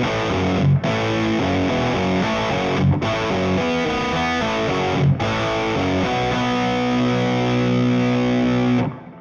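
Outro music with distorted electric guitar playing held chords. It breaks off for an instant three times, then stops shortly before the end with a quick fade.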